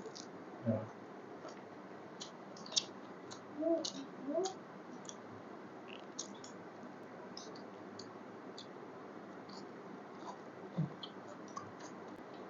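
Faint mouth sounds of someone eating biryani: chewing with scattered short wet clicks and smacks, and a couple of brief low hums.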